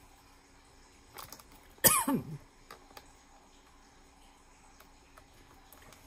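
A woman's short cough-like throat sound about two seconds in, sudden and then quickly falling in pitch. A few faint clicks around it as small ink bottles are handled.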